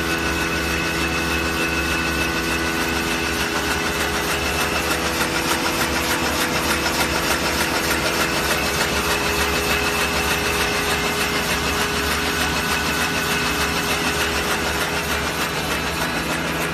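Non-woven facial tissue V-folding machine running at production speed: a steady mechanical hum with several held tones and a rapid, even clatter.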